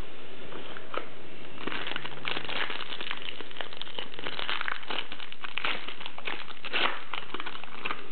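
Foil trading-card pack being torn open and crinkled by hand: a string of irregular crackles that starts about a second and a half in.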